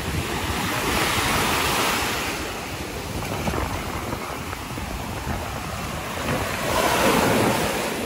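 Sea surf breaking and washing up the sand in foam, swelling twice, about a second in and again near the end, with wind buffeting the microphone.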